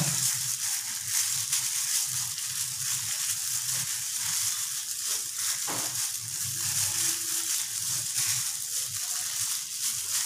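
Gloved hand kneading raw chicken pieces in a chopped chili marinade in a stainless steel bowl: continuous wet squishing and crinkling of the thin plastic glove.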